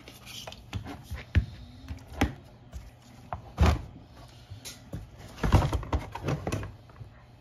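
Knocks and plastic clatter as the grey plastic housing of a WAP 5100 Turbo pressure washer is handled and lifted off its motor and pump. There are scattered sharp knocks, one loud one about three and a half seconds in, and a busier run of clatter about five and a half seconds in.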